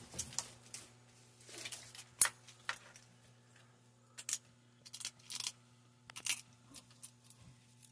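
Savannah monitor crunching snail shells in its jaws: a scattered series of sharp cracks and clicks, the loudest about two seconds in.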